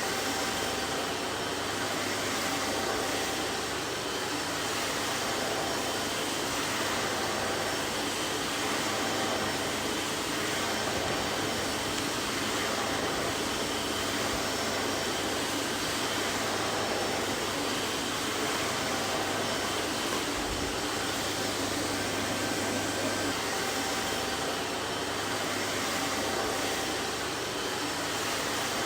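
Vacuum cleaner running steadily: an even, unchanging whooshing hiss with a faint hum and a few thin whine tones.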